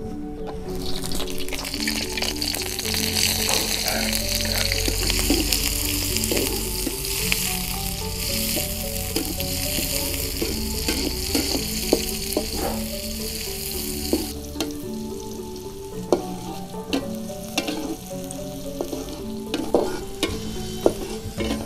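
Sliced shallots and chilies frying in hot oil in a metal wok. They sizzle loudly from about a second in, with a metal spatula scraping and tapping against the wok as they are stirred. About two-thirds of the way through the sizzle settles to a quieter frying.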